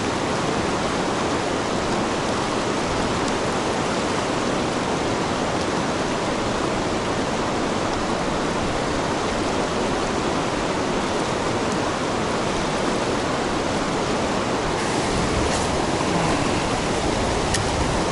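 Steady rush of fast-flowing river water, an even noise without pauses, growing a little louder near the end.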